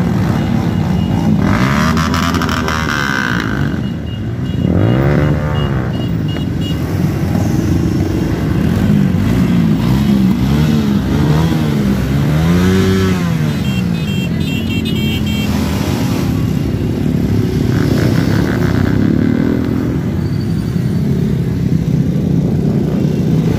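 Several motorcycle engines running close by, blipped repeatedly so the pitch climbs and falls back, with the clearest revs about five seconds in and again around thirteen seconds.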